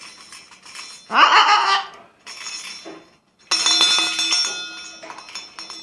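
A blue-and-gold macaw gives one loud squawk about a second in. About three and a half seconds in, a metal object clanks and keeps ringing, its tones slowly fading under more clinks.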